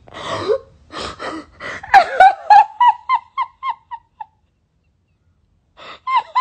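A woman laughing hard behind her hands. A few gasping breaths come first, then a run of high, rapid giggles, about four a second, that fade away. Another run of giggles starts near the end.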